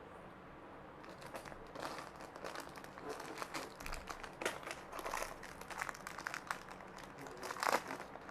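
Packaging crinkling and rustling as it is handled, a dense run of small crackles starting about a second in.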